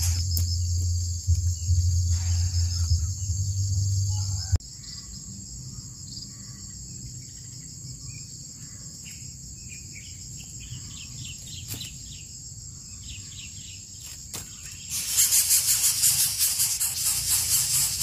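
Steady high-pitched insect drone, with a low hum beneath it that cuts off about four and a half seconds in. Near the end a louder rough, rasping noise sets in.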